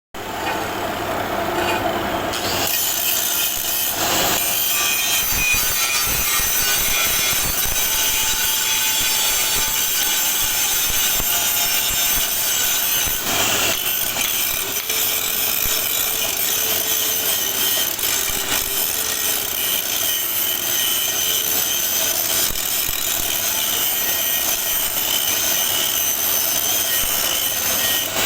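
Angle grinder running against a plate to clean its surface: a continuous, hissing grind that goes on without a break.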